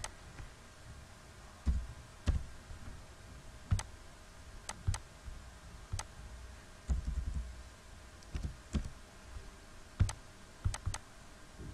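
Computer mouse and keyboard clicking: about a dozen sharp, irregularly spaced clicks and key presses over a faint hiss, as a number in a form field is deleted and retyped.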